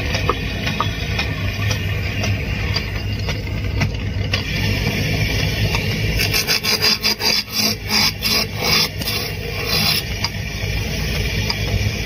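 Wood lathe running with a steady hum while a hand-held chisel scrapes and cuts into a spinning wooden block, turning it round. About six seconds in, the cutting turns into quick, regular rough strokes, several a second, for about four seconds.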